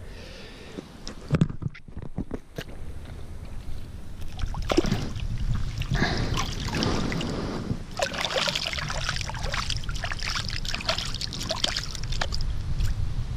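Water sloshing and splashing in the shallows as a wire-mesh keepnet is handled and a crucian carp is put into it, with hands splashing in the water near the end. A few light knocks come in the first couple of seconds before the water sounds start, about four seconds in.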